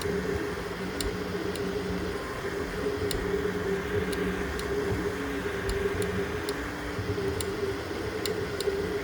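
3D printer running a print: its stepper motors hum at a few steady pitches that keep switching as the print head moves, with scattered sharp ticks.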